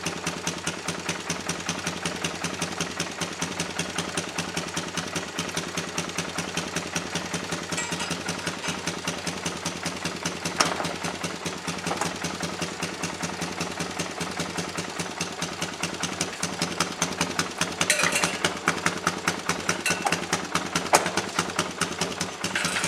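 2003 Suzuki LTZ 400 ATV's single-cylinder four-stroke engine idling on a cold start, with the choke partly on, as a steady train of exhaust pulses. The beat turns louder and less even for a few seconds near the end.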